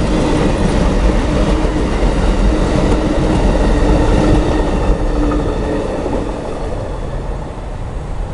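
Rumble of a passing train, heavy and steady with a low hum, fading over the last few seconds.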